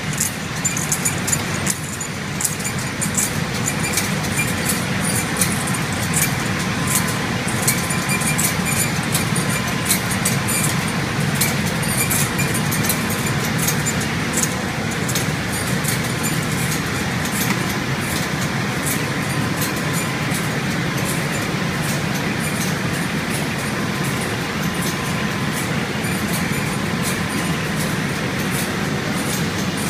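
Aluminium foil printing machine running steadily: an even mechanical hum from its rollers and drives, with a scatter of light ticks and clicks over it.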